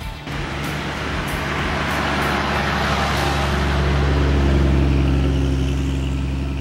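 Toyota LandCruiser 4WD driving past on a soft sand track, its engine note and tyre noise growing louder to a peak about four to five seconds in, then fading as it moves away.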